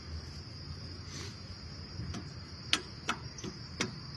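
Dry grass snapping and crackling in a few sharp clicks, mostly in the second half, as grass is pulled by hand from the clogged rotor of a walk-behind rotary tiller. A steady high insect drone runs underneath.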